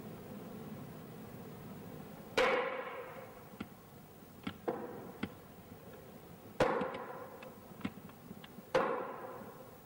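Three heavy strikes, each ringing out and dying away over about a second, the first about two and a half seconds in and the last two about two seconds apart, with lighter clicks and taps between them.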